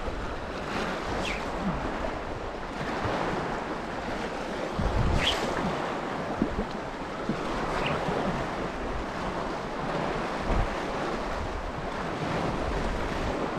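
Small lake waves lapping against a rocky shore, with wind blowing on the microphone; a brief louder rush about five seconds in.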